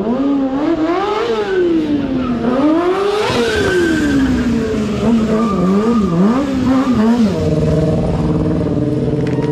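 Stunt motorcycle engine revved hard, its pitch rising and falling again and again in quick swells. About three quarters of the way in it settles to a steady pitch.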